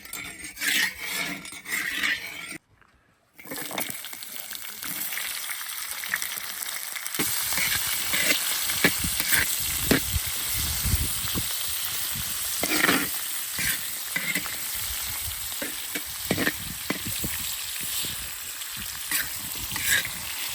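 Sliced cured pork sizzling as it stir-fries in a wok, with a spatula scraping and clicking against the pan. The hiss starts after a brief break about three seconds in and grows louder partway through as the pork renders out its fat.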